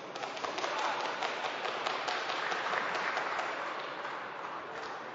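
Audience clapping, a dense patter of many hands that thins out and dies down toward the end.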